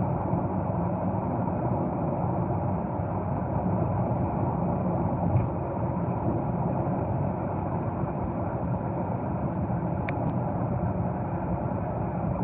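Steady road and engine noise heard from inside the cabin of a car cruising along a highway, with a faint click about five seconds in.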